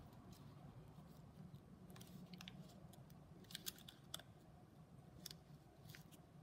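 Faint rustling and crinkling of origami paper being folded and creased under the fingers, in short scattered crackles over a low steady hum.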